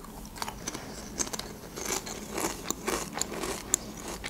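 Paprika potato chips being bitten and chewed close to a clip-on microphone: a string of irregular crisp crunches.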